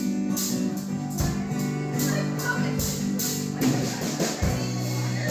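Live band music between sung lines, with no voice: held chords over a steady drum beat.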